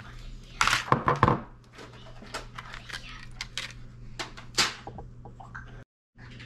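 Hands handling wires and small connector parts: a run of rustles and light clicks, loudest in a dense cluster about a second in, with a single swish near the middle. The sound cuts out briefly near the end.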